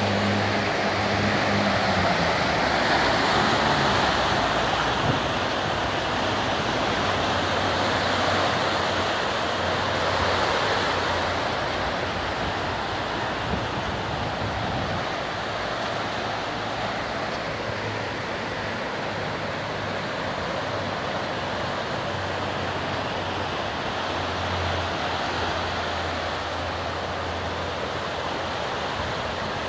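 Swat River in high flood, its muddy water rushing past the bank in a steady, dense roar of moving water. It eases slightly after about ten seconds, and a faint low hum sits under it at times.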